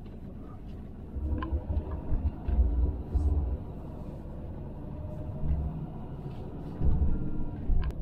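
Camper van engine and road rumble heard from inside the cab as the van pulls away and drives along a street. From about a second in, uneven heavy low rumbling comes in and the engine note rises a little.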